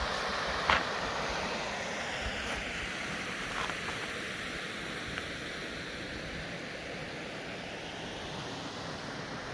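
Steady rush of flowing creek water with a light wind noise, and a single sharp knock under a second in.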